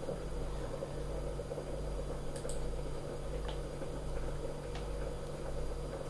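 Steady low hum and hiss of background noise, with a few faint computer mouse clicks in the middle.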